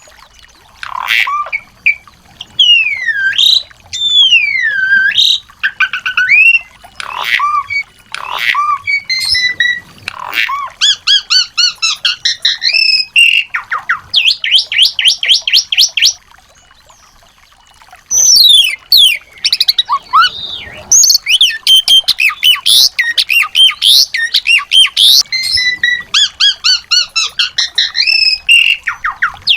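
Small songbirds calling and singing: varied whistles that slide up and down, sharp chirps, and fast rattling trills of about ten notes a second, with a pause of about two seconds a little past the middle.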